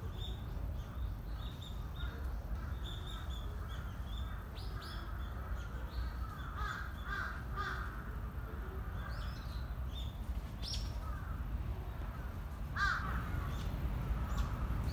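Crows cawing repeatedly in short calls, some in quick pairs, over a steady low background rumble.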